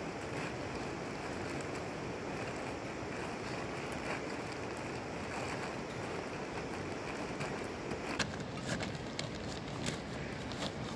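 Steady outdoor rushing noise, like wind. From about eight seconds in, short crinkles and rustles of tent fabric as the rolled-up tent is squeezed and pushed into its carry bag.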